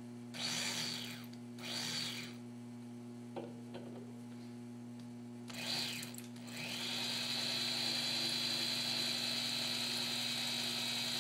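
Corded electric hand drill turning a 3/16-inch Würth black-and-gold bit into the side of a hardened grade 8 steel bolt with no pilot hole. It starts with a few short, slow bursts to get the bit seated without slipping, then from about seven seconds in runs steadily with a high whine.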